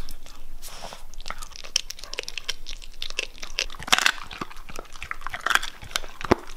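Siberian husky chewing food close up: irregular sharp crunches, the loudest about four seconds in.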